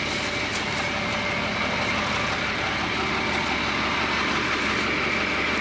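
M35A3 deuce-and-a-half truck's diesel engine running steadily.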